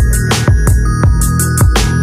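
Electronic intro music with a fast, steady beat: sharp drum hits over deep bass notes that drop in pitch with each hit.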